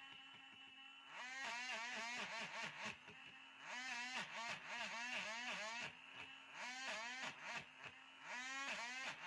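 Small electric power tool sanding a basswood handle, its motor pitch dipping and recovering about four to five times a second as it is pressed into the wood in repeated strokes, with a few short stretches where it runs steady and unloaded.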